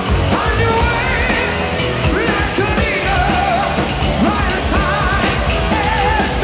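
Heavy metal band playing live: a male lead vocal with wavering held notes over electric guitars and bass guitar.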